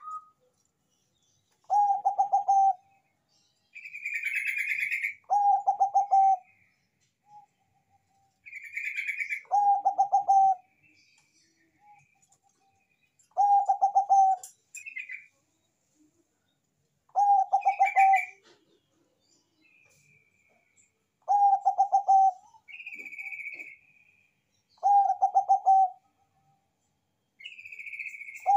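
Zebra dove (Thai-bred 'Bangkok' perkutut) singing its rolling, stuttering coo phrase, about a second long and repeated roughly every four seconds. Higher chirps sound between the phrases.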